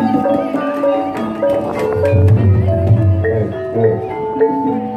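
Javanese gamelan music: metallophones ringing out a melody of held notes, with low drum strokes growing heavier about two seconds in.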